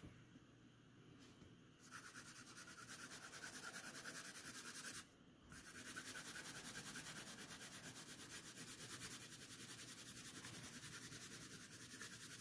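Graphite pencil shading on drawing paper: quick, even back-and-forth strokes that start about two seconds in, pause briefly near the middle and then carry on. The sound is faint.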